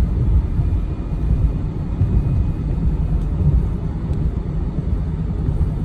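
Steady low rumble of a car's tyres and engine on the road, heard from inside the moving car.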